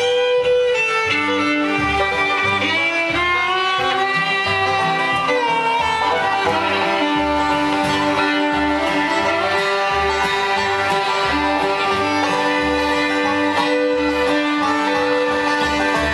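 Bluegrass band playing acoustically: a fiddle leads the tune with sliding notes, over strummed guitar and picked banjo.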